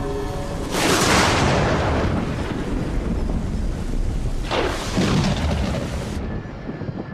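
Cartoon sound effect: two loud booming blasts of noise, about a second and four and a half seconds in, each dying away over a second or more.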